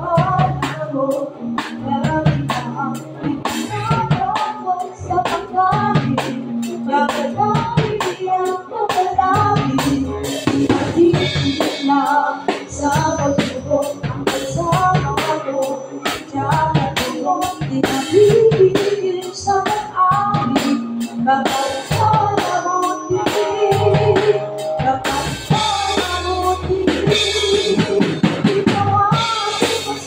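Acoustic drum kit played with sticks, snare, toms, kick and cymbals keeping a steady beat, along with other instruments playing a song.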